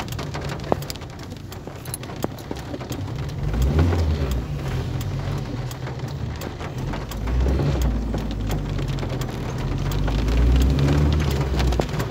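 Rain drumming on a car's windshield and roof as dense patter and hiss, over the low rumble of the car's engine and tyres on the wet road. The rumble swells briefly about four seconds in and again from about seven seconds on.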